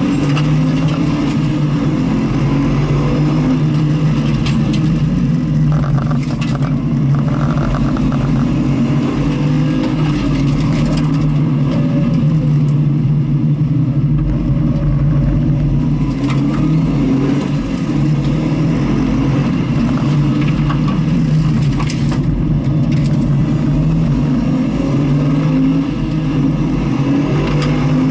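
A vehicle's engine running continuously on a race circuit, its note rising and falling slightly with the throttle, with a few short clicks along the way.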